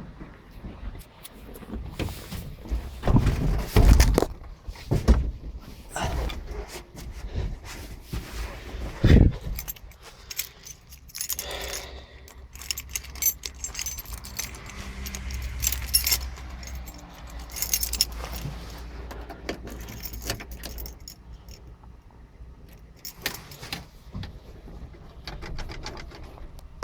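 Keys jangling among irregular clicks, knocks and thumps of handling, loudest a few seconds in and again near nine seconds in, with no engine running.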